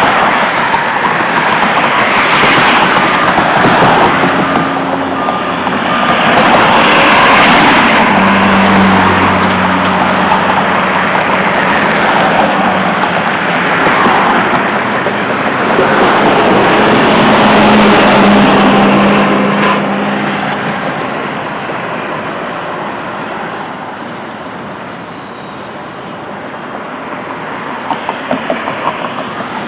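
Motor vehicles running close by: engine and road noise that swells and fades in several long waves, with a low engine hum showing through at times.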